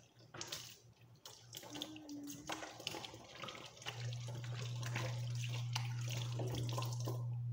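Kitchen sink tap running while dishes are washed by hand, with clinks and clatters of plates; the water shuts off near the end. A steady low hum starts about four seconds in and stays on.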